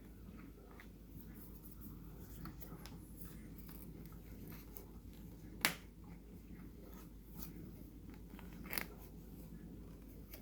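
Bosch 300 series dishwasher running: a steady low hum with scattered faint ticks and two sharp clicks, one about five and a half seconds in and one near nine seconds. This is the odd noise that the owner of the new machine questions as a possible fault.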